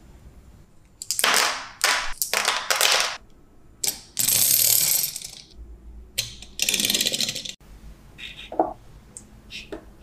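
Toy pieces handled on a surface of small magnetic balls, with a toy car moved across the ball-covered driveway: several short runs of rattling clicks, then a few lighter clicks near the end.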